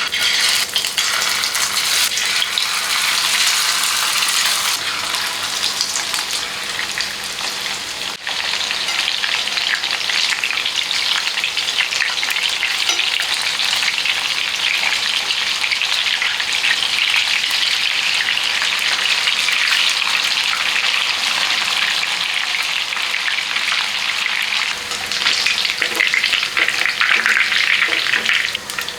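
Food frying in hot oil in a pan: a steady loud sizzle with crackling, easing briefly about a third of the way through and growing louder near the end.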